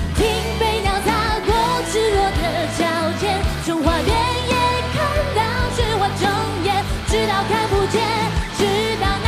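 A woman sings a Mandarin rock song in a Chinese folk style with a full rock band behind her: drums, bass and guitars. Her melody has wavering held notes over a steady bass and regular drum hits.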